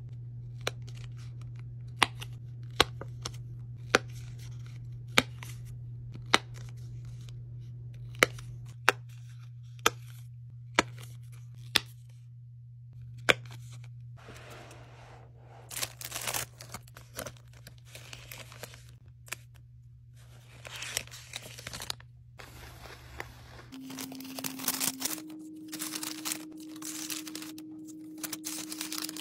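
Enamel pins on paper backing cards being handled: a run of about a dozen sharp clicks, roughly one a second, through the first half. Then paper rustling and crinkling in uneven bursts for the rest.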